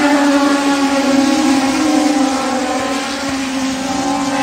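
Engines of a pack of Legends race cars running at high revs around a short oval track, a steady overlapping engine note with small shifts in pitch as the cars go by.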